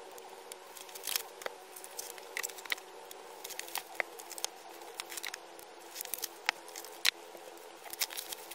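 Hands handling album packaging and photo cards: scattered light taps, clicks and rustles of card and paper, over a faint steady hum.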